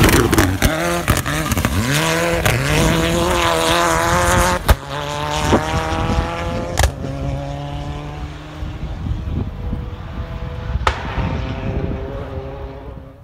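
Rally car at full throttle on a gravel stage, its engine note climbing and dropping again and again as it shifts through the gears, with three sharp cracks along the way. It fades as the car pulls away into the distance.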